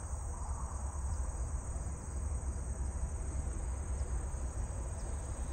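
Insects chirring in a steady, high, even drone, over a low steady rumble.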